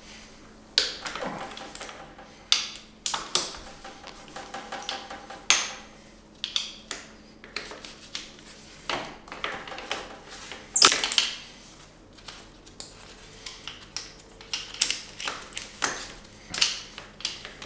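Ratchet and socket working the bolts that hold the transmission to the engine: runs of rapid ratchet clicking, the socket clinking on the metal and a bolt rattling loose, with scattered knocks. The loudest clatter comes about eleven seconds in.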